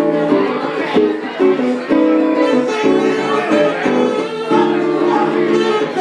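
Live jazz from a guitar and saxophone duo, a run of changing notes.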